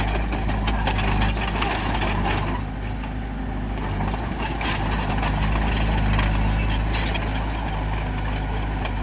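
Bulldozer's diesel engine running steadily, with clanking and rattling throughout that eases off for a moment about three seconds in.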